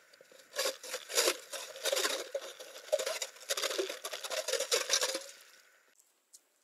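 Hand-cranked ice auger drilling into lake ice: its steel blades scrape and crunch, swelling and fading about twice a second with the turns of the crank. The grinding stops about five seconds in.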